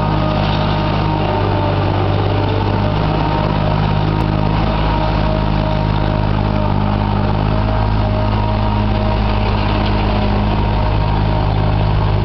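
Diesel engine of a custom-built tracked marsh harvester running steadily as the machine drives slowly forward, with a constant low pitch.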